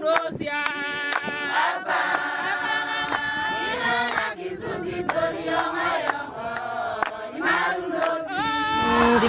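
A group of voices singing together in chorus, holding sustained notes, with sharp taps through it.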